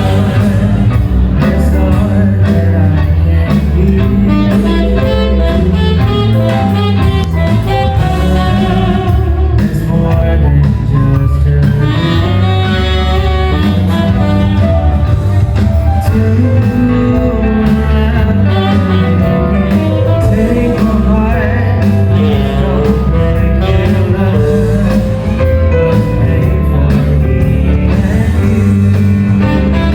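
Loud music with a heavy bass line and a changing melody over it, played through a wedding sound system during a sound check.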